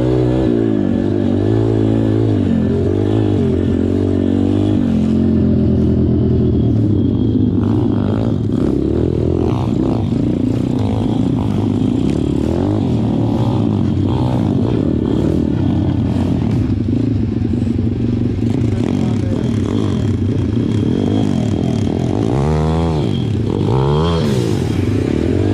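Pit bike engine heard from on board, rising and falling in pitch with the throttle as it rides. Near the end a second dirt bike close by revs sharply up and down several times.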